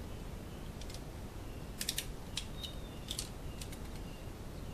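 A scattered run of light, sharp clicks and taps, bunched between about two and four seconds in, from a pencil and small hand tools being handled against a plastic ABS pipe.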